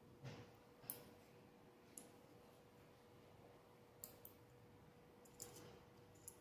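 Short, sharp clicks at irregular intervals, about seven, over a faint steady hum: a homemade battery spot welder firing welds while a battery pack is built.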